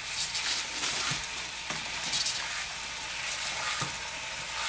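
Ribeye steak sizzling in a hot frying pan: a steady hiss broken by irregular spitting crackles, with a few light knocks of a fork against the pan as the steak is worked.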